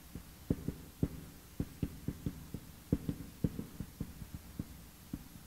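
Marker tapping and knocking against a whiteboard while characters are written stroke by stroke: a string of short, dull, irregular knocks, about three or four a second.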